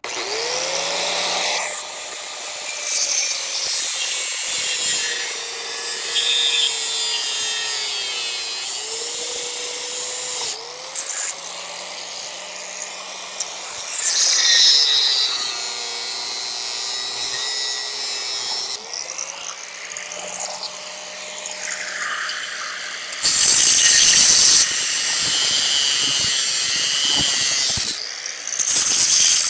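An electric power tool cuts into steel from an old bed frame. Its motor whine sags in pitch as it bites into the metal and comes back up, over a harsh scraping hiss, and the cutting is loudest for the last several seconds.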